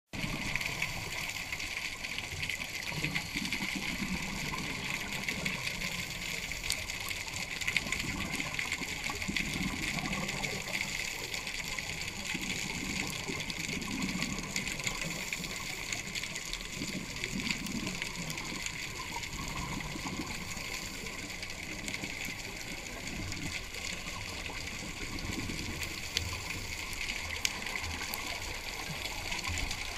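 Underwater ambience recorded by a camera in a waterproof housing: a steady hiss, with low swells rising and falling every few seconds.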